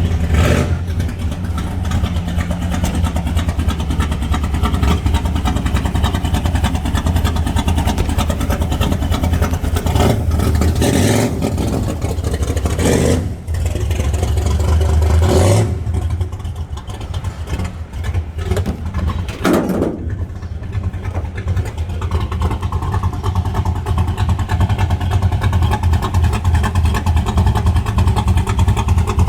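Car engine running loud through its exhaust, a steady deep rumble broken by several short revs.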